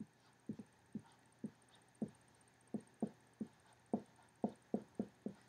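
Dry-erase marker writing on a whiteboard: a faint string of short, soft taps and strokes, about two or three a second, as characters are written.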